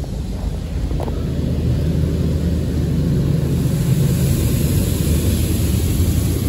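Belanger Kondor touch-free car wash spraying the car, heard from inside the cabin: a steady rumbling rush of water and foam on the body and glass. It swells louder from about two seconds in as the spray passes over, with more hiss near the end.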